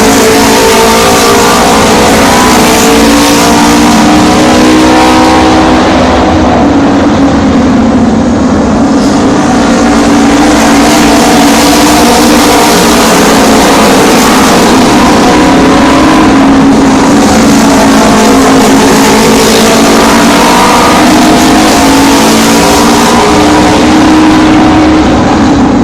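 Pack of Japanese autorace motorcycles racing round an oval track, their unsilenced engines running loud and continuous. Several engine notes overlap and rise and fall in pitch as the bikes pass and circle.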